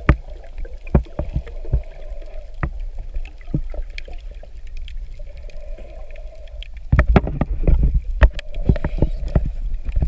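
Underwater sound through a camera housing: scattered sharp clicks and knocks with a faint hum coming and going. About seven seconds in, loud low rushing and churning of water against the housing takes over.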